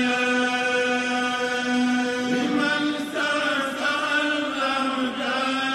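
Islamic religious chanting: voices holding long sustained notes, moving to a new note about halfway through.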